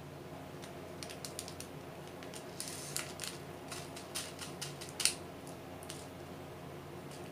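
Irregular light plastic clicks and ticks as diamond painting drills are handled into a row of small clear plastic storage compartments, with one sharper click about five seconds in.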